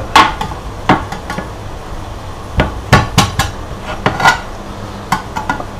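A knife blade struck and jabbed into the metal lid of a tuna can to open it. It makes a series of irregular sharp metallic knocks, about eight in all, some ringing briefly.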